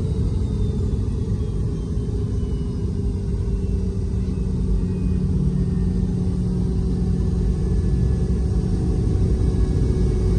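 Cabin noise of a Boeing 717 with its rear-mounted Rolls-Royce BR715 turbofans: a steady low rumble with a steady hum and a faint high whine slowly falling in pitch as the engines wind down after landing.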